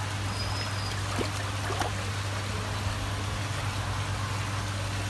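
Water sloshing and trickling in a shallow plastic koi measuring bowl as hands hold and turn a koi in it to measure its length, over a steady low hum.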